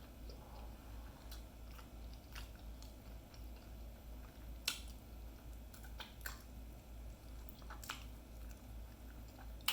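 A person chewing a mouthful of oxtail and sardines in peanut butter sauce, with scattered short mouth clicks, a few sharper ones about halfway through and near the end.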